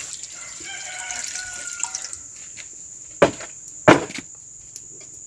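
Water poured from a plastic bowl into a large metal wok of vegetables, splashing with a faintly rising pitch as it fills and stopping about two seconds in. Two sharp knocks follow, about three and four seconds in.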